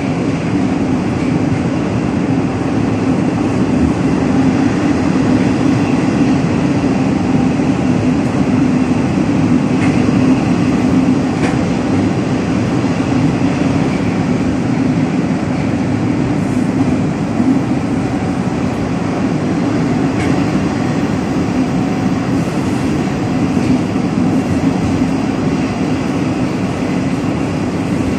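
Metro train of the 81-760/761 "Oka" type running at a steady speed, heard from inside the passenger car: a loud, even rumble with a few faint clicks.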